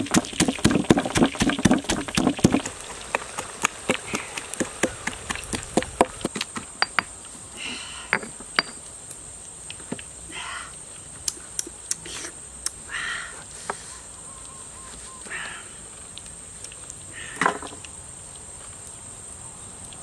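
Stone pestle pounding chillies in a stone mortar, a fast steady beat of knocks that stops about two and a half seconds in. Then come scattered light knocks and several short calls spaced a few seconds apart, over a steady high insect whine.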